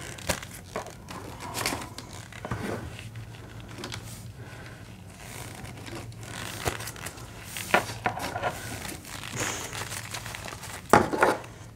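Stacks of Australian polymer banknotes handled and riffled through: irregular plastic crinkling and rustling with short crackles, louder near the end.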